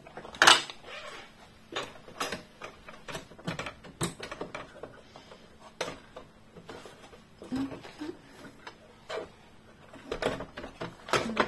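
Scattered clicks and clacks of metal and plastic as the presser foot is changed on a Brother Innov-is sewing machine, an edge-guide foot being snapped into place; the sharpest click comes about half a second in. The machine is not sewing.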